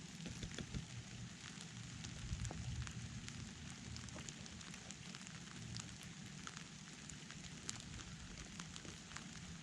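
Rain falling steadily, a soft hiss with many scattered, crackly ticks of individual drops hitting close by, over a low rumble.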